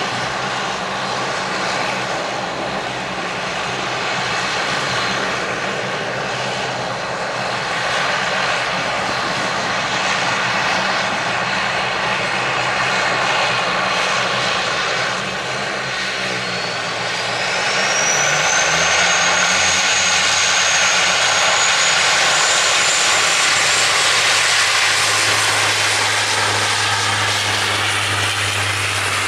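Jet airliner engines running with a loud, steady noise. A little past halfway a high whine rises and then holds steady as the sound grows louder: the engines spooling up to higher power.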